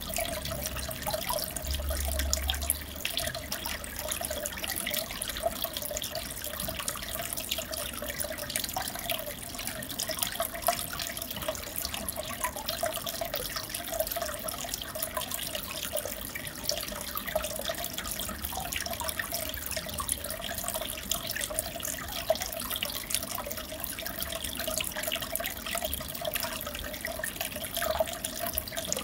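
Aquarium water bubbling and trickling steadily, with fine crackle.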